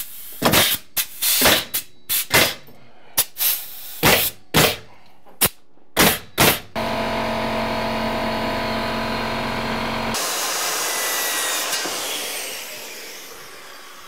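Pneumatic framing nailer firing a quick run of about fifteen shots, driving nails into a wooden door-frame stud. After that comes a steady machine hum, which gives way about ten seconds in to a hiss that fades away.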